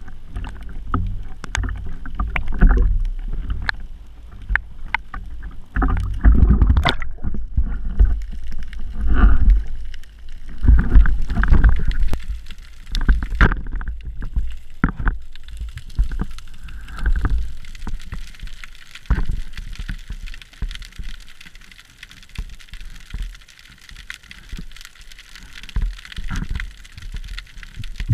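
Water splashing and sloshing against a speargun-mounted camera housing at the surface, with irregular knocks and low thumps as the diver goes under. From about halfway it settles into a steady underwater hiss with faint crackling ticks.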